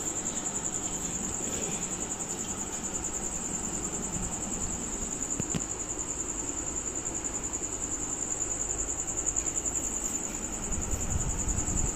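A steady high-pitched insect trill runs throughout, over a low, even rumble of background noise, while cloth rustles as suits are unfolded and handled.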